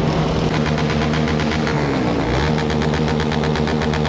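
Motorcycle engines with loud exhausts running, one engine's note dropping and then picking back up about halfway through, with a rapid, regular pulsing from the exhaust.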